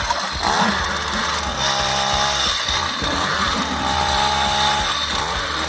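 Motor-driven ice auger running as it bores a fishing hole through lake ice, with a steady motor sound whose pitch wavers as it works through the ice.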